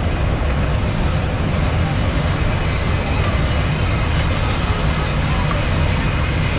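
Busy street ambience: a steady rumble of traffic with voices in the background.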